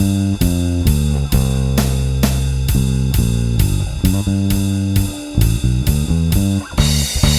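Electric bass, a Bronco bass with a TV Jones Thunderblade neck pickup through a Seymour Duncan Studio Bass Compressor, playing a slow blues bass line of sustained low notes over a drum kit. A cymbal crash comes in near the end.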